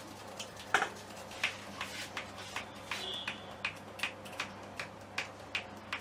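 A regular series of sharp taps or clicks, about three a second, the loudest about a second in, over a steady low hum.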